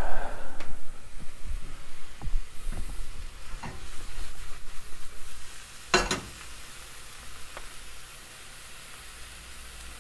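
Sliced blewit mushrooms dry-frying in a nonstick pan with no oil, sizzling as they give off their water. They are stirred, with scattered scrapes and knocks of the utensil and one sharp clack about six seconds in, after which only the sizzle remains.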